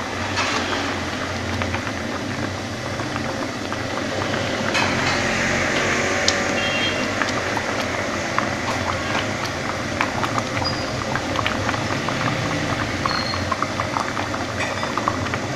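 Water boiling in a wok under a steaming cake pan, a steady bubbling rush, with a few light clicks as a plastic ladle touches the metal pan.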